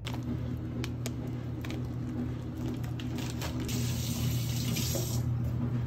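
Kitchen tap running briefly, a hiss from a little under four seconds in to about five seconds, over a steady low hum. Several light clicks and knocks come before it.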